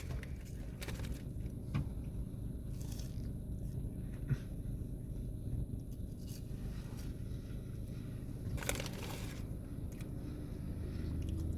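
A person eating skin-on fries: scattered short crunches of biting and chewing, a few louder around nine seconds in, over a low steady background hum.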